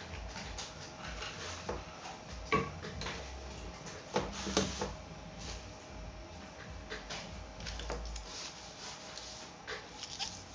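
Scattered small clicks and taps of plastic smartphone parts being handled and fitted back together during reassembly, over a faint steady hum.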